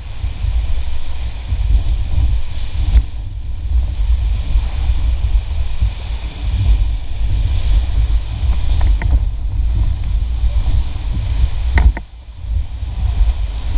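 Whitewater of a big rapid rushing around an inflatable raft, heard through an action camera's microphone as a heavy, rough low rumble. A few short sharp splashes near the end as spray hits the camera.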